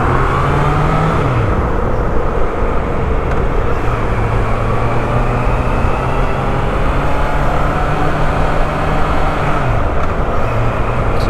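Motorcycle engine running under way in traffic, with a steady rush of wind noise; the engine note drops about a second in and again near the end as the throttle eases.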